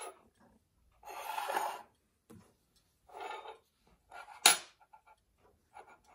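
Brass pocket-watch case rings handled on a hard bench: short bouts of metal rubbing and scraping, with one sharp metallic click about four and a half seconds in.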